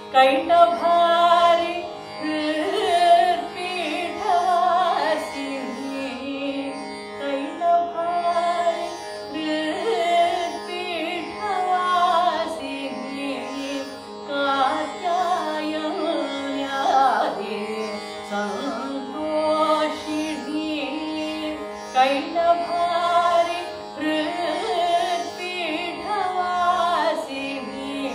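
A woman singing a Carnatic composition in raga Natakapriya, accompanying herself on a Saraswati veena. Her voice glides through ornamented phrases over plucked veena notes and a steady drone, and the singing comes in right at the start.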